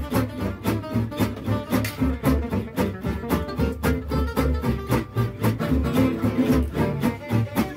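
Small acoustic gypsy jazz band playing: acoustic guitars strum a steady chopped rhythm of about four strokes a second, under a plucked double bass line and a violin.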